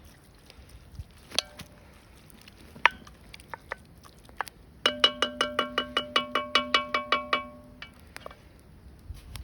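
A metal utensil clinking now and then against a glazed cast iron pan while stirring browning beef. About five seconds in it raps the pan rapidly, about fourteen quick taps, and the pan rings with a bell-like tone.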